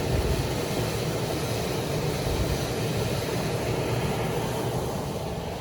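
Old Goodman furnace's blower fan motor running steadily, restarted on a new run capacitor; the fan is a little bit noisy.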